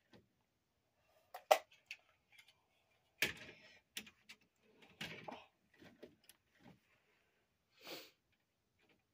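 Scattered light plastic clicks and taps as model train cars are set on the track and coupled by hand, the sharpest about a second and a half in. A short soft hiss comes near the end.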